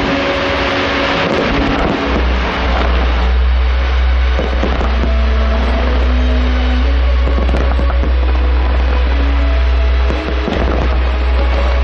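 Fireworks display with many shells bursting and crackling in a continuous barrage, while the show's music plays over loudspeakers.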